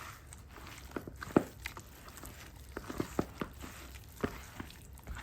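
Raw chicken pieces being stirred with seasoning and lemon juice in a bowl: irregular soft wet squishes and light clicks.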